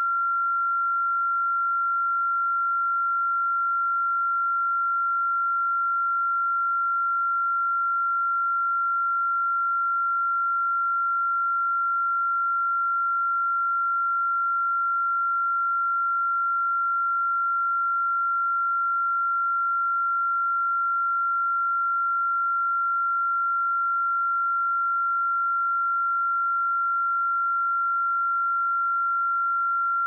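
A pure 1374 Hz sine-wave test tone, one steady high-pitched note held at a constant level.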